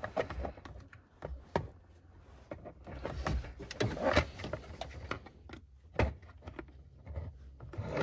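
Scattered plastic clicks and scraping as a flat-blade screwdriver pushes in the plastic retaining clips of a truck's OBD2 port to release it from the kick panel, with one sharp click about six seconds in.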